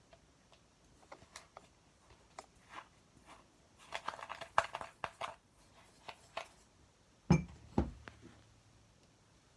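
Kinetic sand being handled with a plastic tool: scattered small clicks and scraping, with a burst of crumbly crackling near the middle. Later come two dull thumps about half a second apart.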